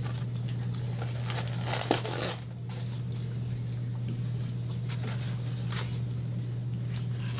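Eating sounds: chewing, and fingers picking fries out of a foam takeout container, with small scattered crackles and a louder cluster of rustling about two seconds in. A steady low hum runs underneath.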